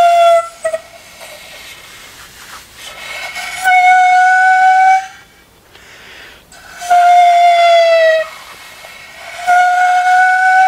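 Danso, the Korean vertical bamboo notched flute, blown in long single held notes: one is sounding as it begins, and others come about 4, 7 and 9.5 seconds in. Breathy air hiss fills the gaps between them as the player sets the lip to find the tone.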